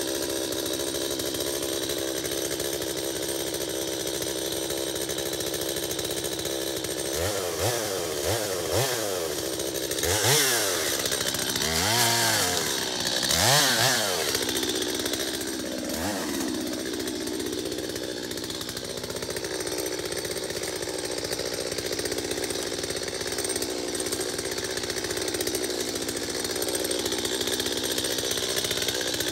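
Stihl MS 250 two-stroke chainsaw idling, given a few quick throttle blips about seven seconds in. It then runs up to full throttle three times in quick succession as it cuts into the base of a dead elm trunk, and drops back to a steady idle for the rest.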